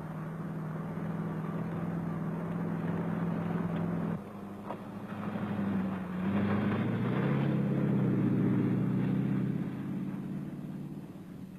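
Classic Range Rover's Rover V8 engine running as the vehicle drives. It holds a steady note for about four seconds, then after a brief break the engine note shifts up and down in pitch and grows louder as it pulls, fading near the end.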